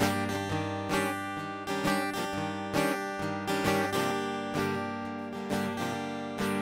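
Solo acoustic guitar strumming chords at an easy pace, the instrumental intro to a song before the vocals come in.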